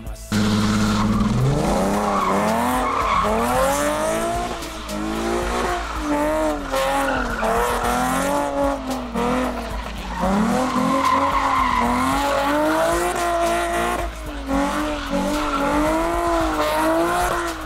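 Car engine revving up and down over and over with tires squealing and skidding, as when doing donuts.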